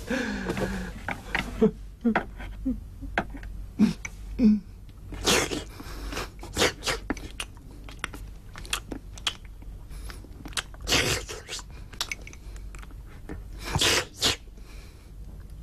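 A man eating ravenously from a porcelain rice bowl: chewing, with quick clicks of chopsticks against the bowl and a few louder rushing sounds as food is shoveled into his mouth.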